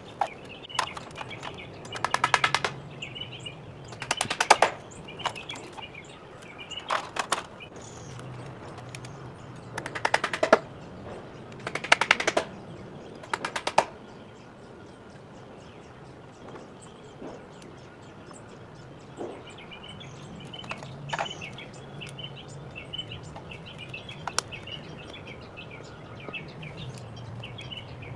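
Impact driver driving screws into treated lumber framing: about six short spells of rapid clicking in the first fourteen seconds. After that, birds chirp with a few scattered knocks.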